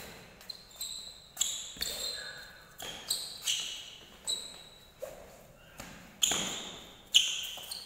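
Sports shoes squeaking and feet landing on a polished indoor badminton court floor during quick footwork drills: sharp squeaks and thuds come one to two times a second, each ringing on in the echo of the large hall, with the loudest two near the end.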